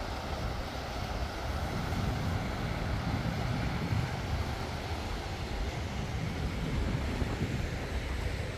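Steady rushing of a fast-flowing river, heaviest in the low end, mixed with wind on the microphone.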